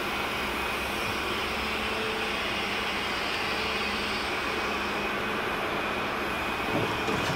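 Steady drone of factory-floor machinery and ventilation, an even noise with a faint low hum running through it. A few brief knocks come in near the end.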